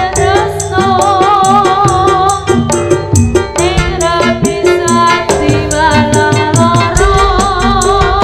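Live Javanese jaranan sentherewe music: a wavering lead melody over low drum strokes and a steady, rapid beat of crisp, rattling percussion.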